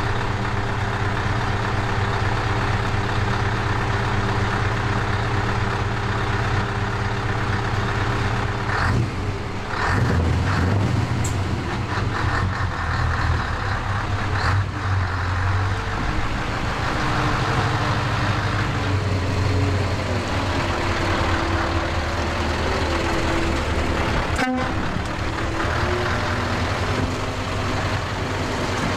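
Scania 164L 580's 16-litre V8 diesel engine idling steadily, then taking load about nine seconds in as the truck moves off, its note rising and falling as it manoeuvres. A brief cut in the sound comes near the end.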